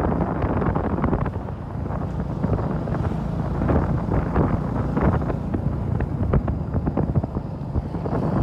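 Wind buffeting the microphone of a motorcycle riding along a road, in uneven gusts over the running engine.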